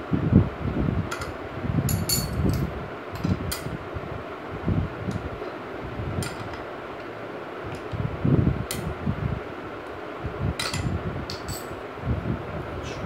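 Metal clinks and sharp clicks of a wrench working the nuts on a Yamaha YBR rear wheel hub, with dull knocks from handling the wheel, over a steady background hum.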